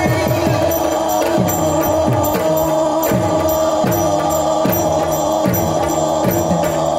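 Yakshagana ensemble music: a quick run of drum strokes, each dropping in pitch, over a steady drone, with small hand cymbals keeping the beat.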